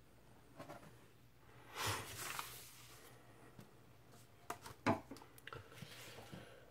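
Faint handling noises of a vinyl LP and its paper packaging: a soft rustle about two seconds in, then a few light knocks and taps around five seconds in as the record and sleeve are set down on a wooden desk.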